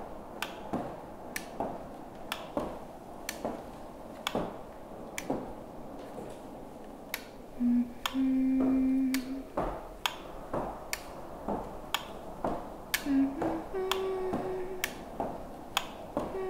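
Steady ticking, about two ticks a second, like a mechanical clock. Over it come a few held low notes that step in pitch, once about halfway and again near the end.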